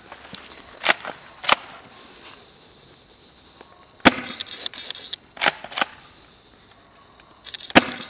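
Swiss Arms Shotgun MS spring-powered airsoft pump shotgun being racked and fired at a target: six sharp mechanical clacks of the pump action and the spring releasing, some in close pairs.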